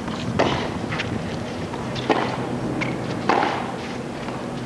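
Tennis rally: the ball is struck back and forth by rackets, three sharp hits about a second or more apart.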